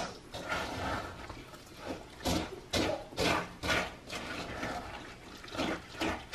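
Stovetop stuffing mix, sour cream, cream of chicken soup and chicken broth being mixed by hand in a bowl: irregular wet mixing strokes, most of them around the middle.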